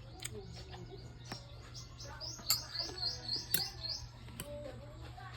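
A small bird chirping a quick run of about eight high notes, four or five a second, in the middle of the stretch, with a few sharp clicks scattered around it.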